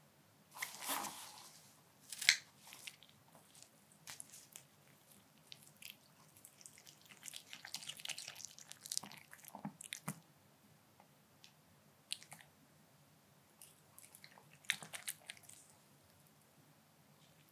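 White Pomeranian chewing and smacking its lips, short wet smacks and clicks in irregular clusters, with a sharp click about two seconds in.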